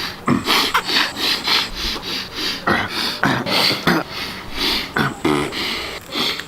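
A man sniffing and breathing hard through his nose in quick repeated strokes, about two to three a second, with a few short grunts among them.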